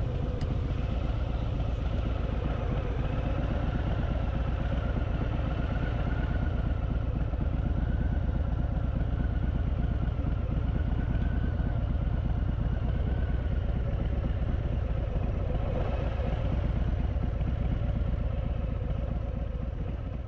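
Harley-Davidson Fat Boy's V-twin engine running steadily on the move, a constant low rumble that fades away at the very end.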